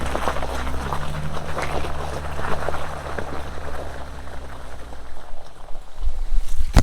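Jeep Wrangler Rubicon driving slowly on a wet trail: a steady low engine hum with crackling and ticking over it. About five seconds in the hum fades away, and a single sharp click comes right at the end.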